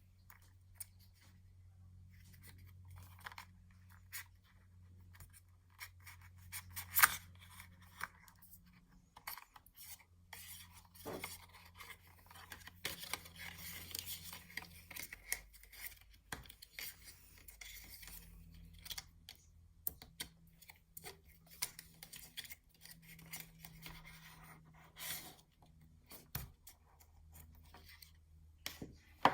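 Hands handling the iPhone box's packaging and contents: scattered clicks with stretches of rustling and scraping of cardboard, paper and plastic, one sharper click about seven seconds in, over a faint low steady hum.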